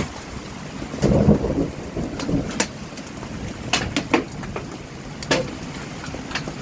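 Large hailstones, almost golf-ball size, hitting the ground and nearby surfaces in irregular sharp impacts over a steady hiss of rain, with a heavier thud about a second in.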